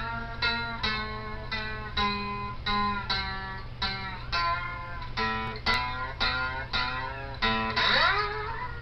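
Guitar music: an acoustic guitar picking a steady run of single notes, about two a second, with a sliding note near the end.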